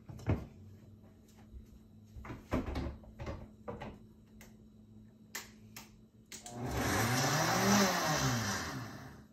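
Vitamix blender running for about three seconds, starting about six seconds in, its pitch rising as the motor speeds up and then falling as it winds down, blending tofu with pesto. A few light knocks come before it.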